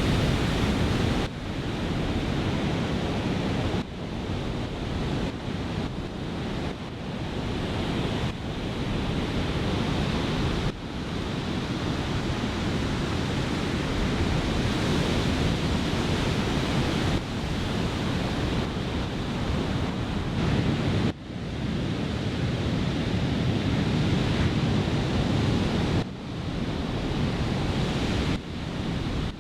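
Surf breaking from a typhoon swell, with onshore wind buffeting the microphone: a steady rushing roar, heaviest in the low end, that jumps abruptly in level every few seconds.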